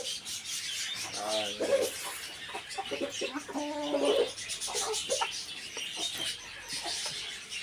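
Brahma chickens clucking, a few short calls over several seconds, over a constant high chatter of many small birds.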